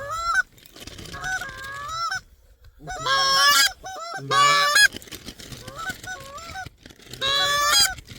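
Goose calls blown in quick strings of honks and clucks, with three loud bursts of rapid calling about three, four and a half and seven seconds in.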